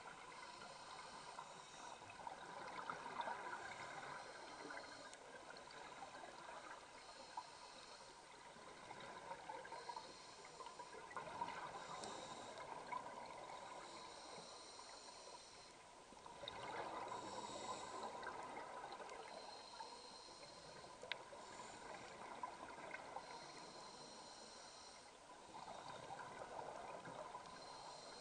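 Scuba diver breathing through a regulator underwater, heard faintly: a short hiss returns every two to three seconds, with stretches of bubbling between as exhaled air escapes.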